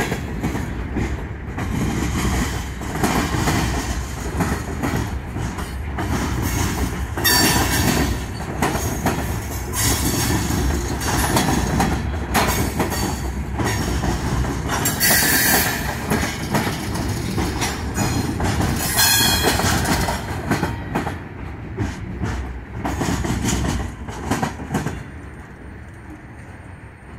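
A Norfolk Southern freight train of boxcars, tank cars and covered hoppers rolling past close up, its steel wheels rumbling on the rails with several brief high-pitched wheel squeals. The noise drops away near the end as the last car goes by.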